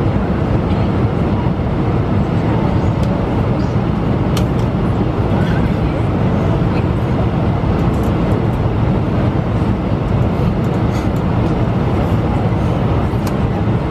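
Steady cabin noise inside an Airbus A320 heard at a window seat beside the engine: jet engine and airflow, an even low rumble with hiss above it, as the airliner descends toward landing.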